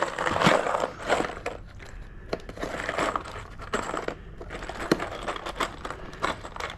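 A box of loose screws being handled, with irregular rattling clicks and scrapes of the metal screws and the box.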